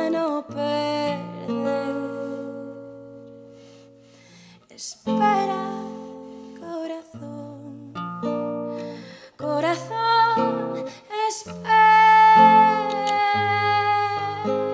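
Nylon-string classical guitar played by hand, its notes ringing and dying away, with the playing thinning to a quiet stretch about four seconds in. Near the end a woman's voice comes in holding a long sung note over the guitar.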